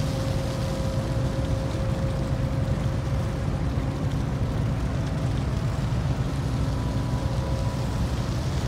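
Steady low rumble with a constant hum from the machinery of the Japan Coast Guard patrol vessel Fuso, running while it lies at berth.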